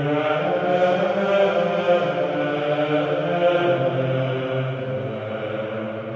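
Chanted vocal music: voices singing long, slowly changing notes over a low held note.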